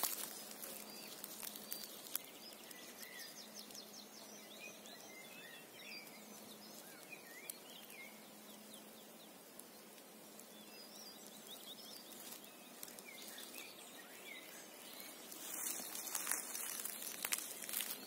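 Birds singing in a pine forest: faint, scattered short chirps and trilled phrases from several birds. A brief rustle about three-quarters of the way through.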